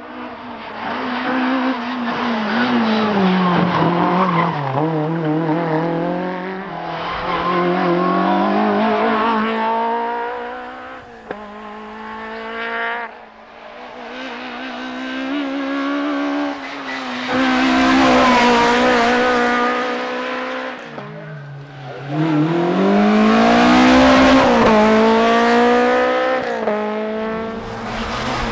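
Peugeot 106 rally car's four-cylinder engine at full throttle, the note climbing and dropping back again and again as it shifts gear and lifts for the bends.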